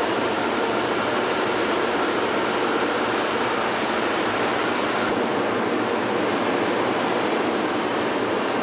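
Factory hall ambience: a steady, even rushing noise with no distinct knocks or tones, its tone shifting slightly about five seconds in.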